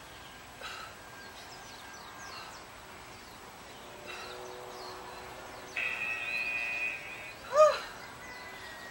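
Birds calling over a steady outdoor background hiss, with faint chirps throughout. A held, steady tone sounds for about a second around six seconds in, and a louder, short rising-and-falling call comes near the end.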